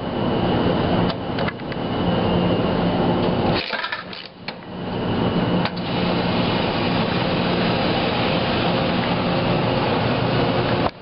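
Wascomat Junior W73 commercial front-load washer running: a steady motor hum as the drum tumbles the load, dropping away briefly about four seconds in before picking up again.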